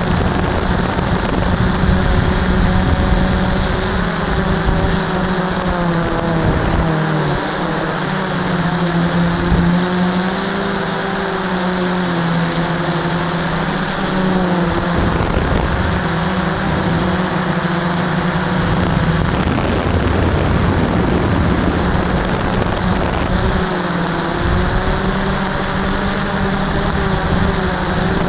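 Radio-controlled plane's motor and propeller running, heard from the onboard camera, its pitch rising and falling several times as the throttle changes, with wind rushing past.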